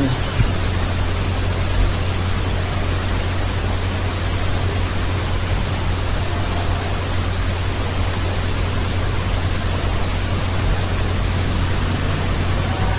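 Steady hiss with a strong low hum, the noise floor of a screen-recording microphone, and a single mouse click about half a second in.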